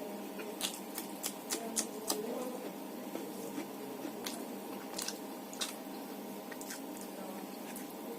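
A person eating rice and fish curry, chewing and smacking with a string of short wet clicks, most of them in the first two seconds and a few more later, over a steady hum.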